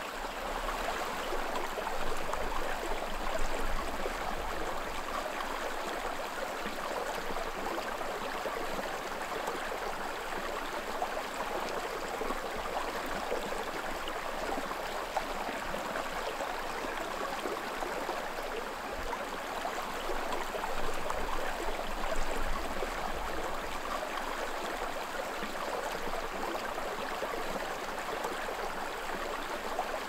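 Small creek running steadily: an even rush of flowing water.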